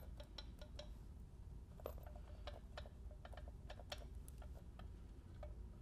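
Faint, irregular light clicks and taps of gloved hands handling a Chrysler 2.4L engine's metal valve cover while a new rubber valve cover gasket is pressed into its groove.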